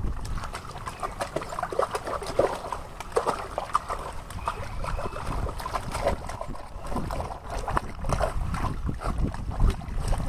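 Small dog splashing and wading in a shallow inflatable paddling pool, water sloshing and lapping with irregular splashes, and plastic play balls knocking about in the water.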